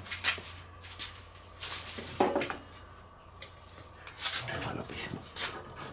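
Metal grill tools clinking and clattering as a stainless spatula is picked up, with one sharp clank about two seconds in, then crinkling of aluminium foil and paper being handled.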